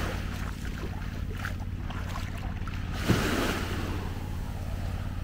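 Surf washing onto a sandy beach, with a wave surging and breaking about three seconds in. A steady low hum and wind on the microphone run underneath.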